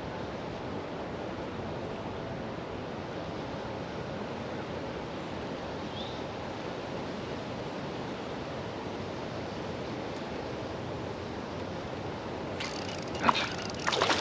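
Steady, even rushing of flowing creek water, with a few sharp knocks near the end.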